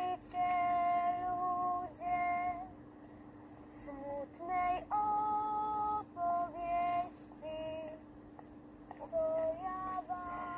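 A woman singing a sad street ballad in long, held notes, phrase by phrase with short breaks between.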